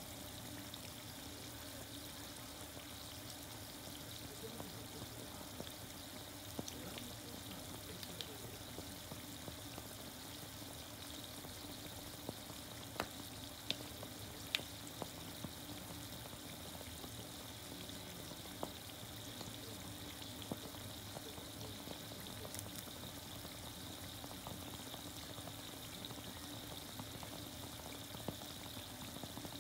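Chicken karaage deep-frying in oil in a mess tin: a steady sizzle with scattered small pops, the chicken nearly cooked.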